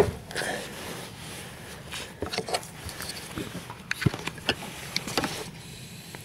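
A sharp plastic click as the fuel pump's electrical connector is handled off the pump flange. A few lighter clicks and taps of plastic parts being handled follow.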